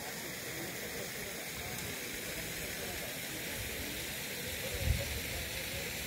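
Steady rush of flowing water, with a single low thump about five seconds in.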